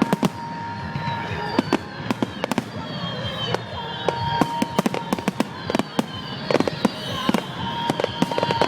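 Fireworks display: many sharp, irregular bangs and crackles from bursting aerial fireworks, with several high whistles sliding slowly down in pitch.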